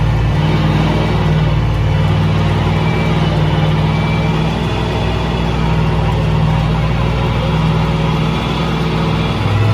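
Megalodon monster truck's engine running steadily at an even, low pitch, heard from inside the cab.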